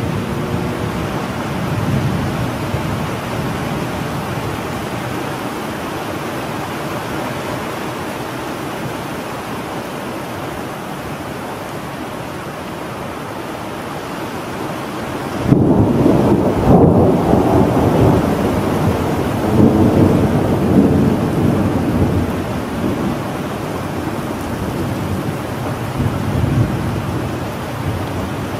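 Thunderstorm: steady rain with low thunder rumbling under it. About halfway through a loud clap of thunder breaks in and rolls on, swelling again a few seconds later and once more near the end.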